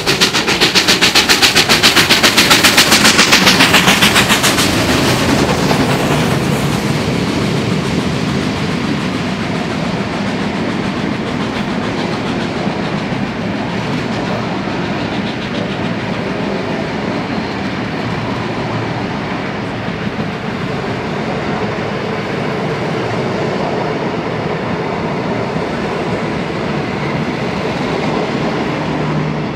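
Two steam locomotives, an R class 4-6-4 and a K class 2-8-0, working hard up a steep grade: loud, rapid exhaust beats for the first few seconds, fading as they draw away, then the steady rolling noise of the carriages passing on the rails.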